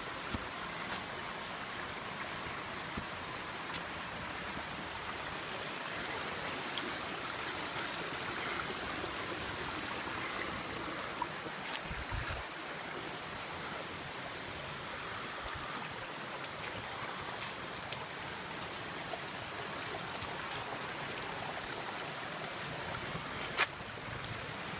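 A mountain stream running steadily, with scattered light clicks and a sharper snap near the end.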